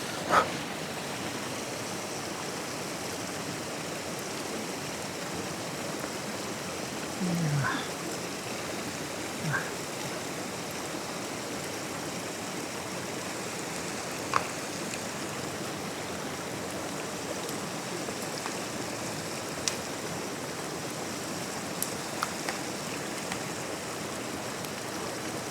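Steady rushing of a flowing stream, with a few scattered small clicks and knocks and two brief low sounds about seven and nine and a half seconds in.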